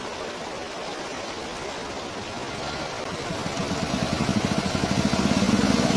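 Stream water rushing, with a motorcycle engine running and growing steadily louder from about halfway through.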